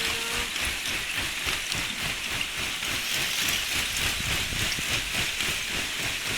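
Lake ice shove: sheets of ice pushing ashore, grinding and crackling in a steady, dense crackle and hiss with a low rumble underneath.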